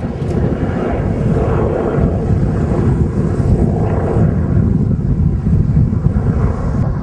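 A propeller aircraft's engines running steadily, with wind buffeting the microphone.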